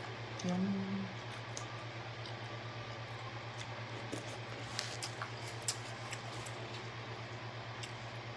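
Close-miked eating sounds: scattered small clicks and smacks of chewing and handling seafood, over a steady low electrical hum. A brief low hummed tone comes about half a second in.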